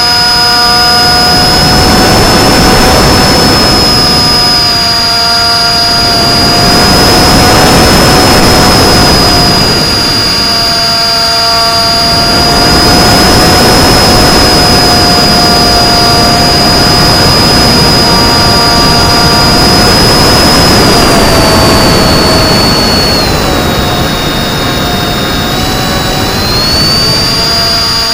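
Electric motor and propeller of an FPV flying wing whining steadily in flight, over loud rushing air noise that swells and fades. The whine's pitch drops for a few seconds about 23 seconds in, then rises again.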